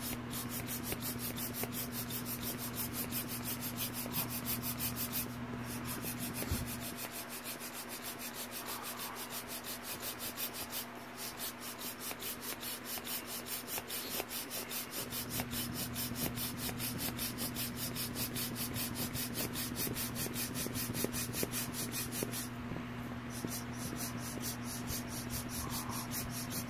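Vinyl beach ball being inflated, its plastic rubbing against the microphone in a fast, even rhythm with a few short pauses. A steady low hum runs underneath.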